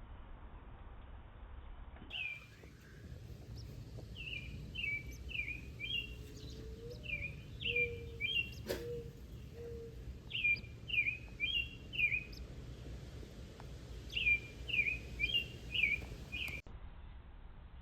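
A parent bird calling near its nest of hatchlings: short falling chirps in quick phrases of three or four notes, repeated over and over. A single sharp click about halfway through.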